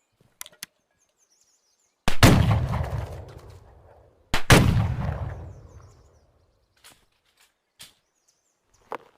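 Double-barrel flintlock shotgun fired twice, one barrel after the other about two seconds apart, each shot a loud blast with a long rolling echo. A couple of short clicks come before the first shot.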